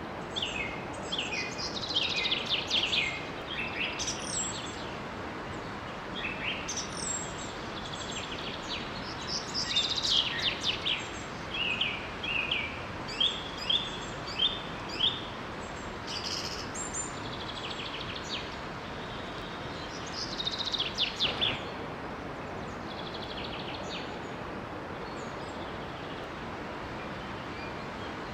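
Songbirds singing in bursts of quick, high chirps and down-slurred notes over a steady rush of flowing water from a small waterfall; the birds fall quiet for the last few seconds while the water runs on.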